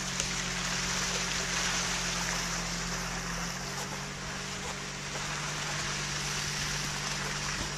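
Infiniti FX35 SUV driving slowly over a rough dirt track: its V6 engine hums steadily under a broad hiss of wind and tyre noise, picked up from outside the open window.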